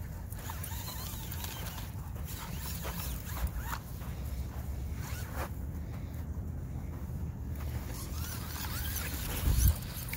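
Rustling and scuffing from someone jogging with a handheld phone: clothing brushing and irregular footfalls, over a steady low rumble of wind on the microphone. A louder bump comes near the end.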